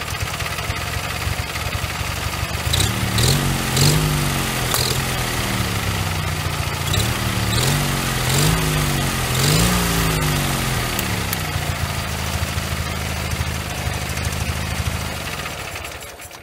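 Ural motorcycle's flat-twin boxer engine, built from defective parts, running with no knocking or rattling. From about three seconds in it is revved in a series of short throttle blips, each rising and falling back. It then settles to a steady idle, and the sound falls away near the end.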